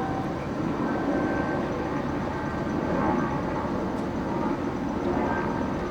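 Steady rumble of engines running, with a faint hum on top.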